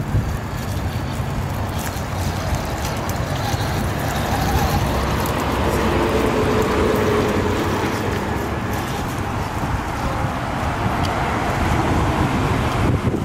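Traxxas TRX-4 Sport RC crawler driving over bark mulch: the whine of its electric motor and gears, with the crackle of wood chips under the tyres. The whine is strongest about midway, as the truck passes close by, over a steady outdoor rumble.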